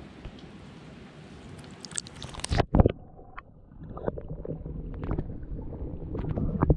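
Lake water lapping and splashing as a camera is dipped into it. About two and a half seconds in, the sound turns suddenly muffled as the camera goes under: a low underwater rumble with scattered clicks and knocks.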